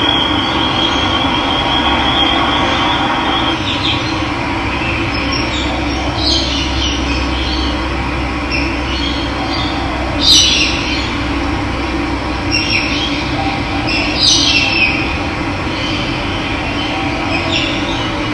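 Steady rush of running water, with wild birds chirping now and then above it; the loudest chirp comes about halfway through, and a thin high trill runs through the first few seconds.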